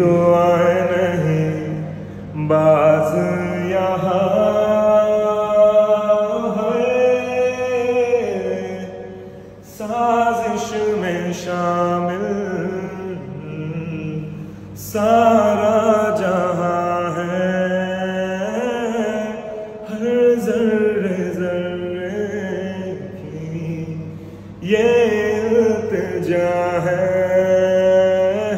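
Background music: a voice chanting or singing a slow melody in long phrases, each a few seconds long, over a steady low drone.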